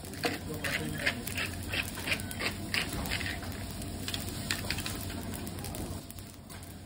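Quick run of short scraping taps on a teppanyaki steel griddle, about three a second for the first three seconds and a few more later, over the low sizzle of fried rice cooking on the hot plate.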